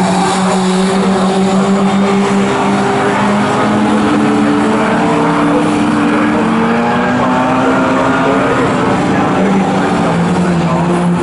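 Engines of classic GT racing cars running at speed on the circuit, several at once, their pitch rising and falling with revs and gear changes.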